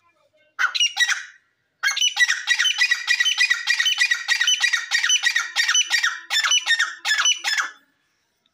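Grey francolin calling loudly: one short call about half a second in, then a long run of rapid, harsh repeated notes lasting about six seconds that stops abruptly.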